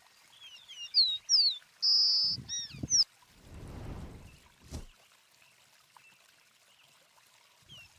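A songbird sings one phrase of sharp down-slurred whistles and a held high note, with some low noise under it, in the first three seconds.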